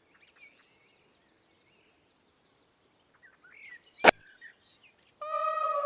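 Faint birdsong chirping in the background, then one sharp click about four seconds in. A little after five seconds, a loud, long held note starts and sags slightly in pitch.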